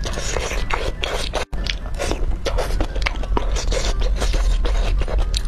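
Close-miked chewing of thick, saucy spicy noodles: wet mouth smacks and clicks, with chopsticks scraping through the noodles in the bowl, over a steady low hum. The sound drops out briefly about one and a half seconds in.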